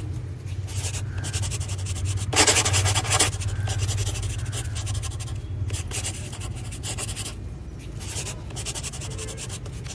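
Scissors snipping through hair during a haircut: runs of quick clicking snips over a steady low hum, with one louder burst about two and a half seconds in.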